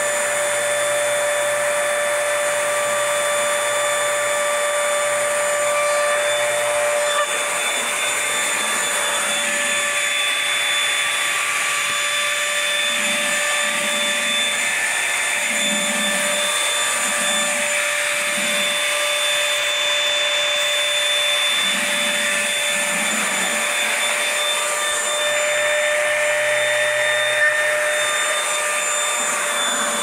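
Dirt Devil Simpli Stick stick vacuum running steadily while being pushed over the floor: a constant motor whine over rushing suction air.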